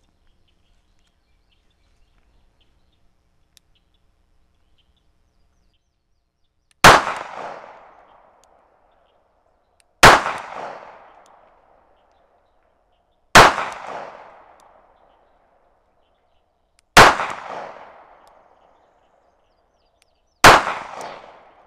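Five .38 Special shots from a Smith & Wesson 442 J-frame snub-nose revolver firing 158-grain lead round-nose rounds. The first comes about seven seconds in, then one every three to three and a half seconds, each followed by an echo that dies away over about a second and a half.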